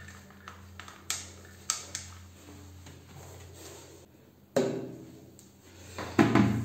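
A cloth wiping glazed bathroom tiles, with a few sharp taps in the first two seconds. About four and a half seconds in and again near the end come two louder sounds with a held tone in them.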